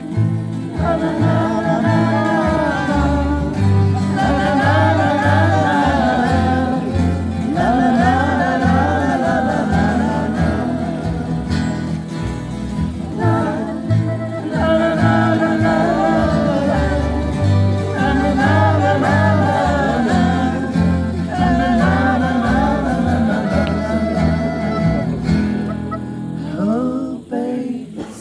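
A live acoustic song: a voice singing over a plucked double bass walking from note to note and a strummed acoustic guitar. The singing stops shortly before the end.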